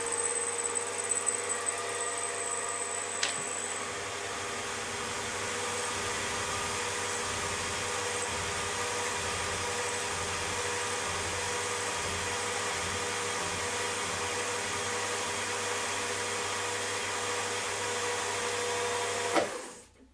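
Milling machine running, its end mill cutting a pocket in a metal frame part for a model hit and miss engine: a steady machine hum with a whine from the spindle over the noise of the cut. The sound cuts off near the end.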